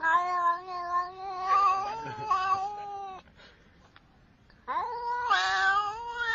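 A domestic cat giving two long, drawn-out meows at a held, slightly wavering pitch, with a short pause between them. The second meow carries on past the end.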